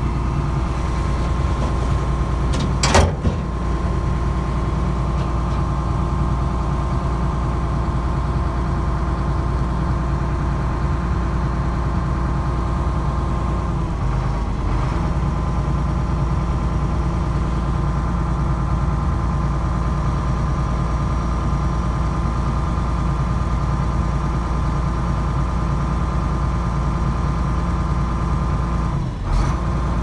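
Hyundai compact excavator's diesel engine running steadily, with a sharp metallic knock about three seconds in and another brief knock near the end.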